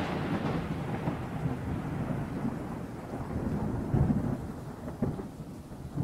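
Thunder rumbling over steady rain, the rumble swelling louder about four seconds in.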